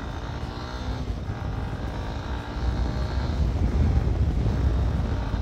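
Yamaha Ténéré 250's single-cylinder engine running steadily under way on a dirt road, with heavy wind rumble on the camera's microphone. The sound grows louder over the last few seconds as the bike picks up.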